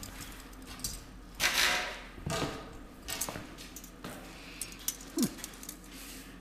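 Irregular handling noises from working fibrous insulation and metal hose clamps: rustles and light knocks, the loudest a burst of rustling about a second and a half in, and a short squeak near the end.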